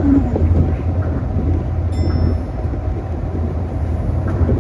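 Tokyo Monorail train running on its elevated guideway beam, heard from inside the front cab: a steady low rumble from the rubber-tyred running gear. A short high beep sounds about two seconds in.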